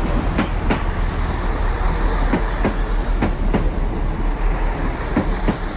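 Great Western Railway Class 166 diesel multiple unit running slowly into the platform, its wheels clicking over rail joints in pairs over a steady low rumble.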